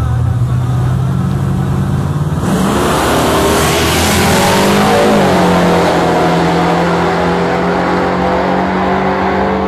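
Two pickup trucks' engines held steady at the start line, then about two and a half seconds in they launch at full throttle in a drag race: a sudden rush of noise and engine pitch climbing in glides as they pull away past the camera, running on at a steady high pitch.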